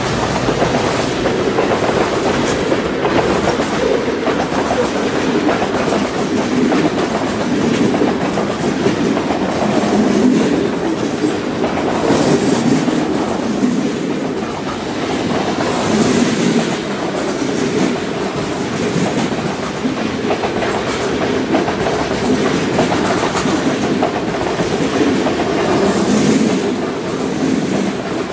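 Freight train rolling past at close range, a steady rumble with the clickety-clack of wheels over the rail joints.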